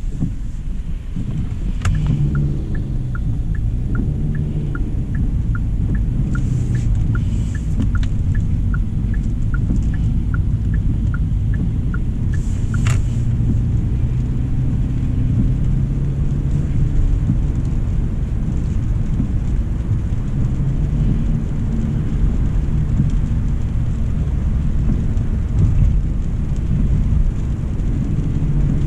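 Steady road and drivetrain rumble inside the cabin of a 2025 Hyundai Elantra SEL on the move. From about two seconds in to about thirteen seconds a turn-signal indicator ticks evenly, about two and a half ticks a second, ending in a sharper click.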